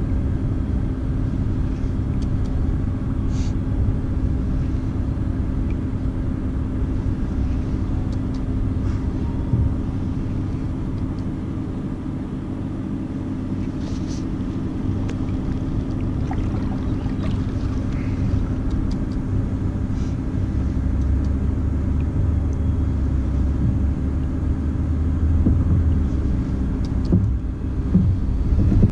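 Wind buffeting the camera microphone: a steady low rumble, with a few faint clicks.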